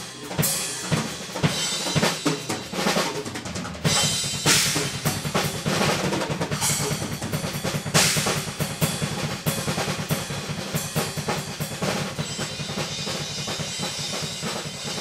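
Acoustic drum kit played solo and improvised in a progressive-metal style: snare and tom fills with cymbal crashes. From about four seconds in, a rapid unbroken run of bass drum strokes runs under the fills, with loud crashes about four and a half and eight seconds in.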